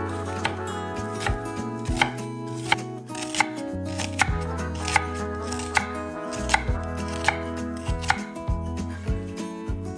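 Chef's knife slicing through a halved onion and knocking on an end-grain wooden cutting board, a crisp knock about every three-quarters of a second.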